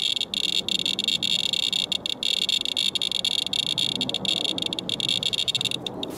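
Radalert Inspector Geiger counter's audio clicking so fast that the counts run together into a steady, high chirping buzz with brief breaks, stopping near the end. The count rate is high: the wipe of rainwater reads about 1.06 mR/hr, roughly 100 times background.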